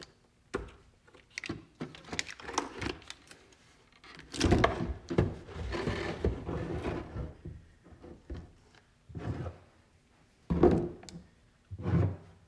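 Old lead-acid UPS battery pack being unplugged and pulled out of its plastic case: a run of small clicks from the wire connectors, then a few seconds of scraping as the batteries slide out, followed by three thunks as heavy batteries are set down on a wooden workbench.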